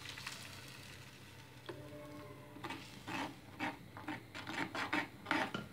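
Steel spoon scraping and stirring against the inside of an earthenware pot of rasam: a quiet start while thick mashed toor dal is poured in, then a run of short rasping scrapes from about halfway through.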